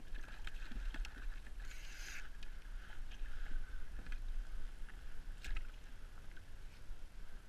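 Water sloshing against a kayak hull, with a few light knocks on the boat and a short rush of water about two seconds in.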